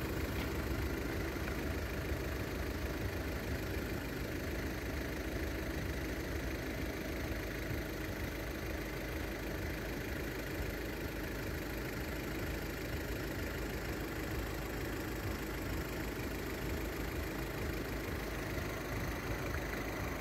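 Steady low rumble of idling engines, even throughout with no rise or sudden sounds.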